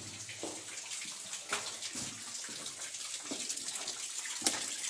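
Water falling and splashing steadily from the rock lip of a cave mouth onto wet stones, with scattered sharp taps of footsteps on the rocks.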